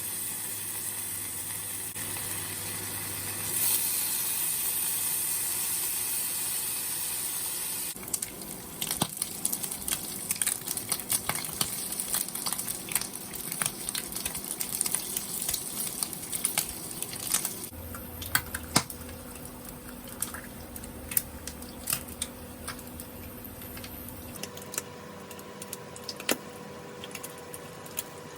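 Bacon frying in a pan: a steady hiss, then from about eight seconds in a dense crackle of popping fat that runs on.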